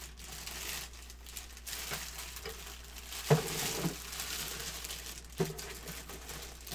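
Packaging material rustling and crinkling as it is handled during unboxing, with a few sharp knocks from the parts being moved.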